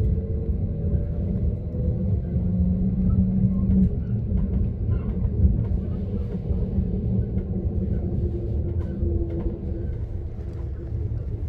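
Passenger train running, a steady low rumble with faint low hums from its drive coming and going and a few light clicks.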